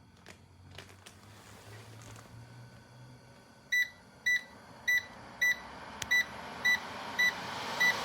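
Electronic beeps from a bladeless tower fan's controls, eight short identical beeps about two a second starting a few seconds in, as the speed is stepped up. The fan's airflow hiss grows steadily louder toward the end.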